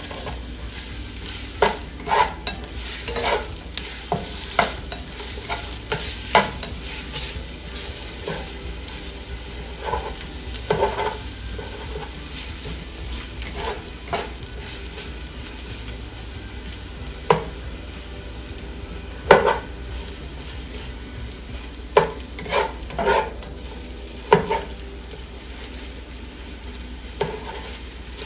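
Onions and minced garlic frying in vegetable oil in a pan, a steady sizzle, while a utensil stirs them, scraping and knocking against the pan at irregular moments.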